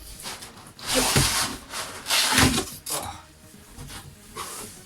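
Cardboard box and foam packing of a PC case being handled: two loud rubbing scrapes, about a second and two and a half seconds in, each with a dull knock, then fainter rustling.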